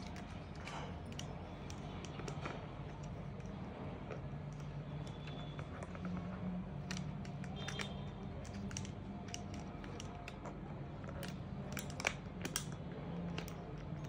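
African grey parrot's beak working at the cap of a plastic water bottle, making irregular clicks and crackles with a few louder clicks near the end. A steady low hum runs underneath.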